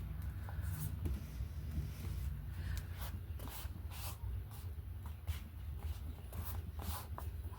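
Short, irregular scratchy rubbing and rustling strokes of hand craft work on paper, several a second from about two seconds in, over a steady low hum.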